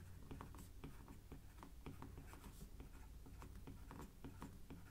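Faint, irregular tapping and scratching of a stylus writing on a tablet screen, over a low steady hum.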